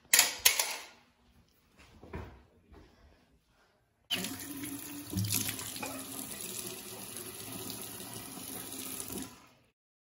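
Two loud sharp sounds in the first second, then a tap running with a steady rush of water for about five seconds until it stops near the end.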